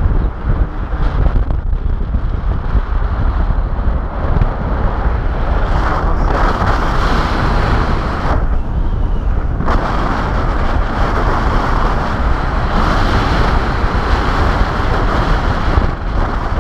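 Wind from a paraglider's flight buffeting the camera microphone: a loud, continuous rush with a deep rumble, easing briefly in its upper part about eight to nine seconds in.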